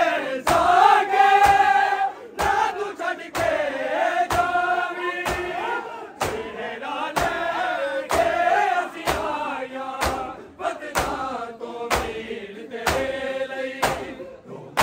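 A group of men chanting a Punjabi noha lament together, with sharp rhythmic strikes of matam (hands beating on chests) about once a second.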